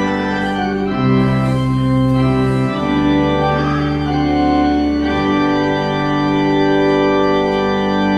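Church organ playing a hymn set to a traditional Welsh folk tune in slow, sustained chords that change every two seconds or so, the last one held long.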